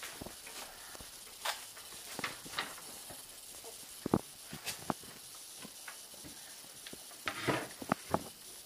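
Cupboard doors opening and a child searching the shelves: scattered light knocks, clicks and rustles, with a quick cluster of them near the end.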